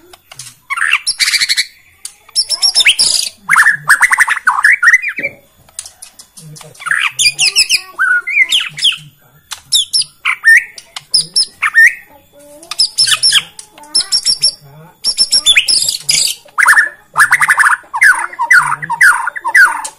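White-rumped shama (Bornean murai batu) singing loudly in phrases of a second or two with short pauses between, mixing clear whistled notes and quick slurs with fast rattling runs of repeated notes.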